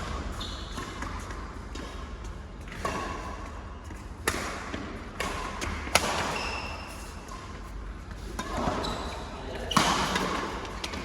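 Badminton rally in a sports hall: rackets strike the shuttlecock with sharp, echoing cracks about five times at uneven intervals, with brief high squeaks of shoes on the court between hits.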